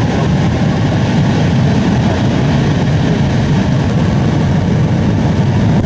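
Epsilon S rocket's second-stage solid-fuel motor firing on a static test stand: a loud, steady rushing noise, heaviest in the low range, that drops off sharply near the end.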